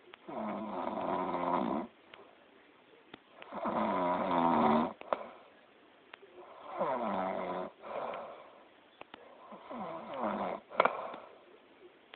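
A sleeping person snoring loudly: four long snores about three seconds apart, each lasting a second or more, with quiet breathing gaps between them and a sharp click just after the fourth.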